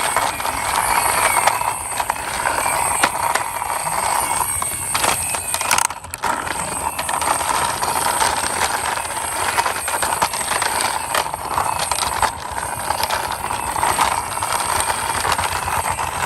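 Small plastic toy three-wheeler pushed by hand along a rough wall, its wheels rolling and rattling with many small clicks over a steady background hiss.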